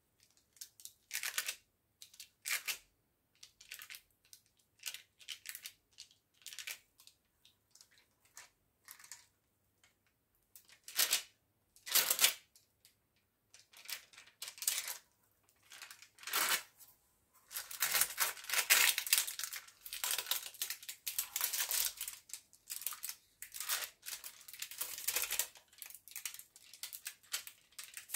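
A spoon spreading and smoothing wet seed crispbread dough thinly over parchment paper on a baking tray: scraping, rustling strokes, scattered at first, then close together and near continuous for the last third.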